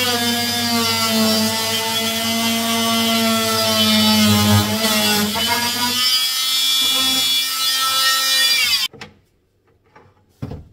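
Power tool running steadily as it cuts a slit in timber. Its pitch dips slightly partway through, and it stops abruptly about nine seconds in.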